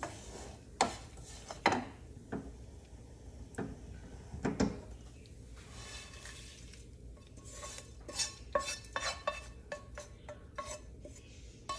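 Wooden spatula stirring and scraping roasted grated coconut around a non-stick frying pan, with several sharp knocks of spatula on pan. In the second half, a quick run of scrapes and clicks as the coconut is scraped out of the tilted pan onto a pan of pumpkin curry.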